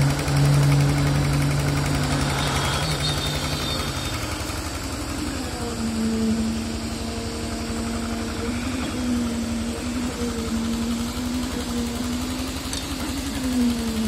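Concrete needle vibrator running in a fresh pour: a steady mechanical hum whose pitch shifts a few seconds in and then wavers up and down.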